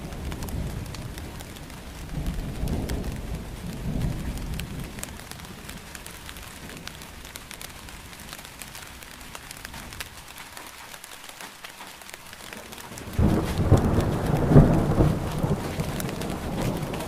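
Rain falls steadily, pattering with drops, while low thunder rumbles. About thirteen seconds in, a loud thunderclap starts suddenly and rolls on.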